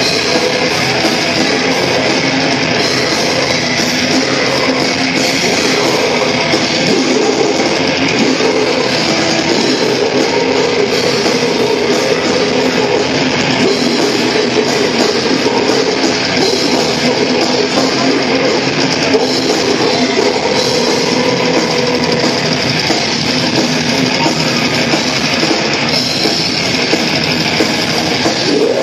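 Death metal band playing live at full volume, heard from within the crowd: distorted electric guitars, bass and a drum kit in one dense, unbroken wall of sound.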